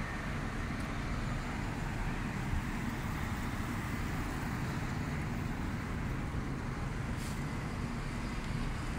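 Steady low rumble of road traffic heard outdoors.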